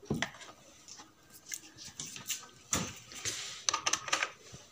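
Scattered short clicks, knocks and rustling from handling a CRT TV's circuit board and its mains lead on a bench, with a quick cluster of clicks near the end.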